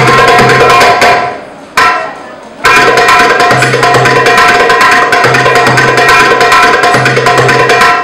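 Drum solo music: a dense, rapid hand-drum rhythm breaks off about a second in, then a single accented hit, then the full rhythm resumes.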